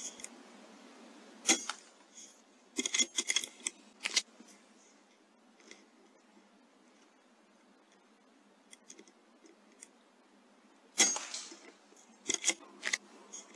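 Sharp clicks from an Airmaks Krait L .22 PCP air rifle: a single sharp shot about a second and a half in, then a run of quick mechanical clicks. Another shot comes about eleven seconds in, followed by more clicks.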